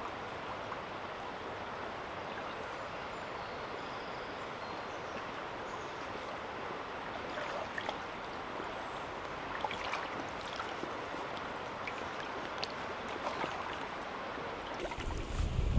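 River water running steadily, with scattered light splashes from a person wading waist-deep through it in the second half. A low rumble starts near the end and is the loudest thing.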